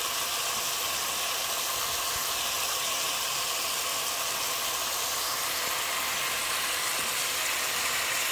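Pork cubes with red peppers and onion sizzling steadily in an uncovered pan, cooking in their own juices with no water added.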